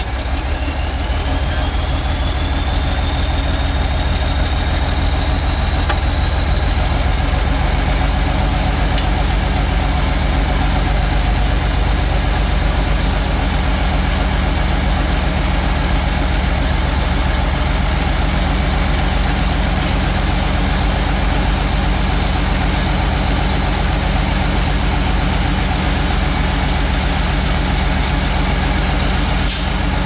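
Heavy diesel engine of construction machinery running steadily with a deep, even drone. A thin high whine rises over the first several seconds, then holds steady.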